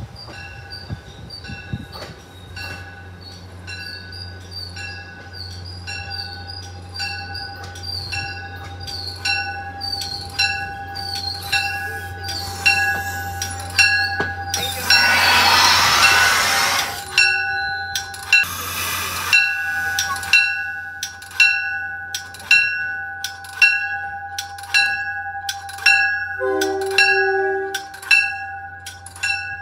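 Commuter train's bell ringing steadily, about one and a half strikes a second, as the train pulls in and stops at the platform, over a steady low hum from the train. About halfway through comes a loud hiss of air from the train, with a shorter hiss a couple of seconds later.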